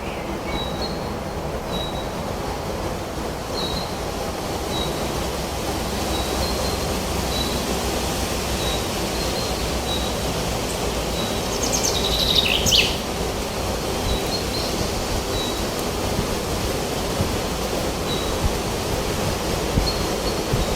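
Steady wind through forest trees. Over it a bird repeats a short high chirp about once a second, with a brief burst of louder song about twelve seconds in.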